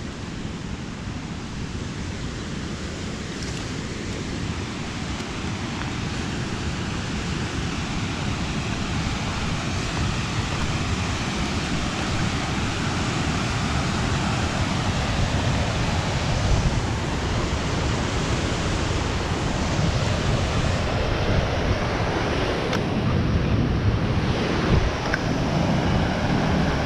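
Low Force waterfall on the River Tees: a steady rush of falling water that grows gradually louder.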